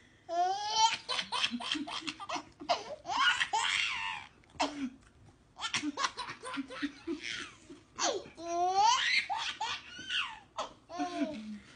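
A baby laughing in several runs of high-pitched laughter and squeals, with short breaks between them.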